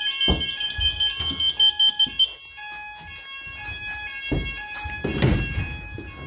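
Fire alarm sounder base under a detector sounding in full alarm: a steady high-pitched tone with loud rapid pulses just before it cuts off about two seconds in, then fainter alarm tones. A few dull thumps of handling can also be heard.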